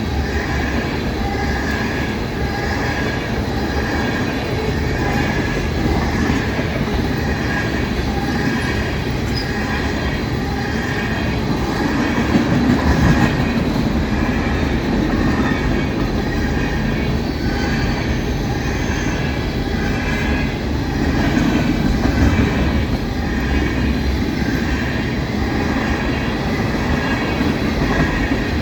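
Empty ethanol tank cars of a CSX freight train rolling past at about track speed: a steady, loud rumble of steel wheels on rail, with a faint high wheel squeal over it.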